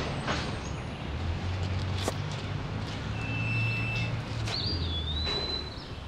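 Steady low rumble with a few light knocks and thin high whistling tones: one held steady for about a second midway, and one wavering for over a second near the end.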